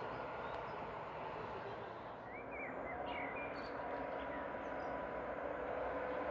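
Small birds chirping in short calls over a steady outdoor background hiss. A faint steady hum comes in about three seconds in.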